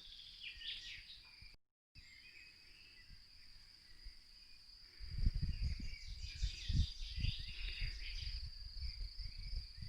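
Faint outdoor winter ambience: small birds chirping here and there over a steady high-pitched hiss. From about halfway, irregular low rumbling bumps on the microphone are the loudest thing.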